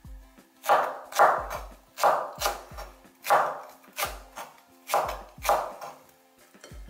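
Kitchen knife slicing a spring onion diagonally on a wooden cutting board: a sharp chop with a dull knock on the board, about every half second.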